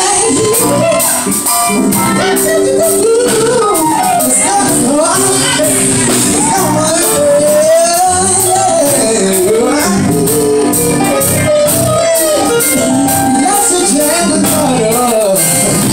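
Live band playing loudly, with a lead voice singing a gliding melody over drums and a steady beat.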